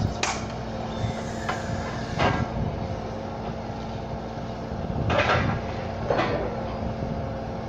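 Diesel engine of an Atlas road-rail excavator running steadily, with sharp metal-on-metal clanks as its grab works at a rail trolley loaded with steel rails: a few lighter clanks in the first couple of seconds and two louder ones about five and six seconds in.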